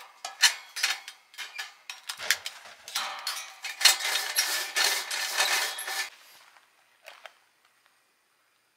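Small hard objects clattering and clinking as they are handled, a busy run of rattles and clicks for about six seconds, then a couple of faint clicks.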